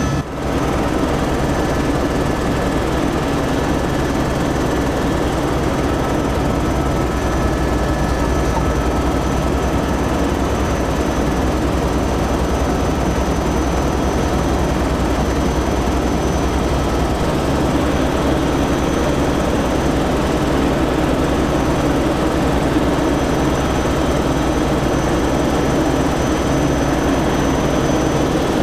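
Helicopter in flight heard from inside its cabin: the engine and rotor noise drones steadily, with a few faint high whines running through it. The sound dips briefly just after the start.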